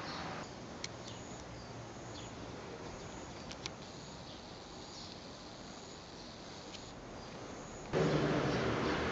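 Outdoor ambience with faint, short high-pitched chirps and a few light ticks. About eight seconds in, a louder rushing noise starts abruptly.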